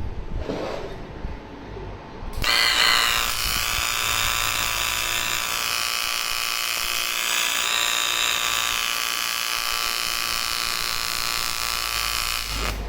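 AC TIG welding arc buzzing steadily on an aluminium cylinder head being repaired for corrosion. The arc strikes suddenly a couple of seconds in and cuts off near the end.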